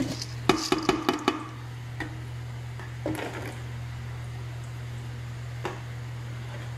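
Uncooked rice poured into a steel pot of tomato broth, with a quick run of clinks and knocks about half a second in, then a few softer knocks later. A steady low hum runs underneath.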